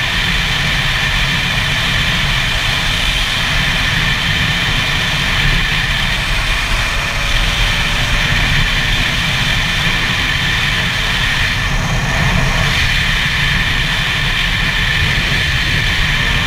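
2009 Gas Gas EC SMR 125 single-cylinder two-stroke engine running at a steady pitch while the bike is ridden on the road, with heavy wind rumble on the helmet-mounted microphone.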